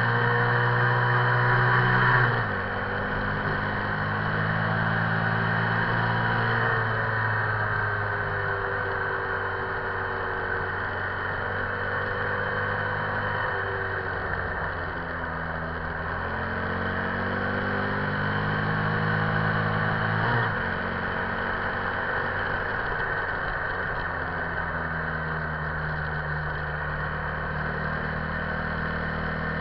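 Buell XB9SX's air-cooled 984 cc V-twin engine running hard at highway speed. It revs high, drops sharply about two seconds in, climbs in pitch again, drops sharply once more about twenty seconds in, then runs steadier.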